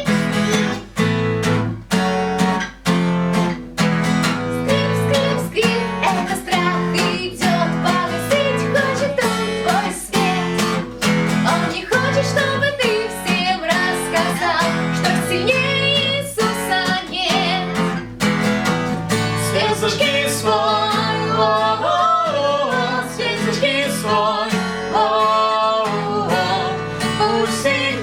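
Acoustic guitar strummed in a steady rhythm, accompanying a worship song, with a voice singing along, more clearly in the second half.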